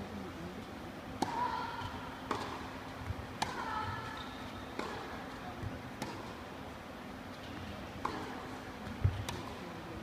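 Tennis rally: a string of sharp pops from rackets striking the ball and the ball bouncing, about one a second, starting with the serve about a second in. Short pitched squeals follow several of the strikes.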